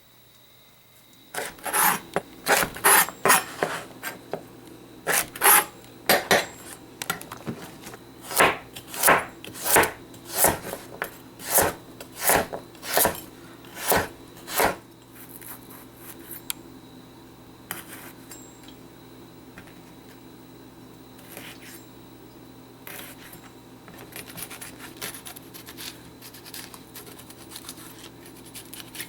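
Kitchen knife cutting vegetables on a wooden cutting board: evenly spaced rasping strokes about two a second for some thirteen seconds, then lighter, scattered handling sounds.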